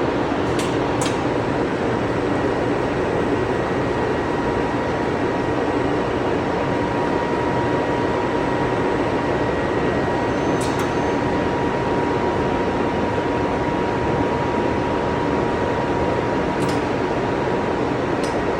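Glass-cutting CNC machine running steadily, a loud even mechanical hum with a thin steady whine, and a few sharp ticks scattered through it.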